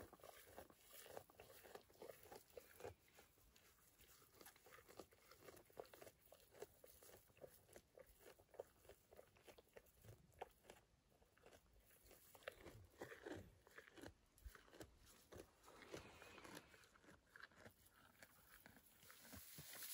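Highland cattle calf eating hay close by: faint, irregular crunching as it tears and chews the dry stalks.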